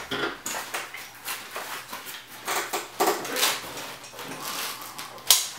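Nylon chest rig and plate carrier being handled: rustling and scraping of fabric and Velcro with small clicks of buckles, then one sharp snap about five seconds in as a clip is pressed home.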